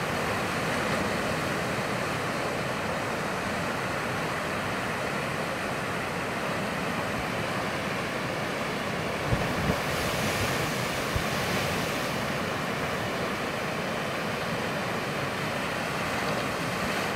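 Muddy floodwater rushing down a monsoon-flooded creek, a steady even rush with no let-up. A few brief low thumps come about nine to eleven seconds in.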